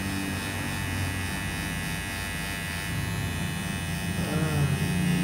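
Electric hair clipper running with a steady buzz as its blade cuts short hair at the temple, blending a fade.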